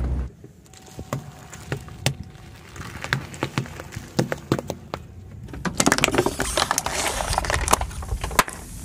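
A car tyre rolling slowly over pomegranates, their skins cracking and splitting in a string of separate sharp cracks and pops. Past the middle comes a denser, louder run of crunching and crackling as the tyre flattens a plastic Pepsi bottle, ending in one sharp crack.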